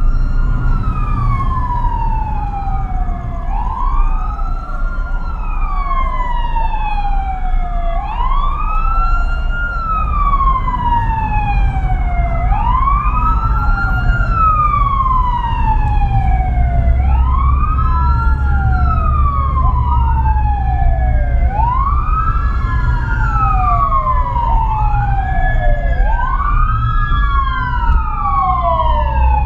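Two emergency vehicle sirens wailing together, each rising quickly and falling slowly every few seconds, their cycles overlapping. They are heard from inside a moving car over the steady rumble of its engine and road noise.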